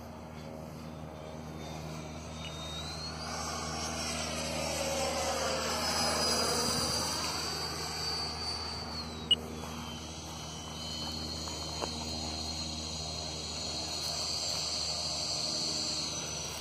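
Radio-controlled model jet flying overhead: a thin high whine that swells and fades as it passes, dropping in pitch about nine seconds in. A single sharp click near the middle is the loudest moment.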